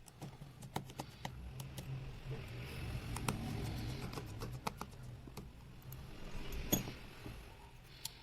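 Irregular small clicks and taps of hand tools working on an opened smartphone's parts, with a steady low hum underneath and a louder rustle about halfway through.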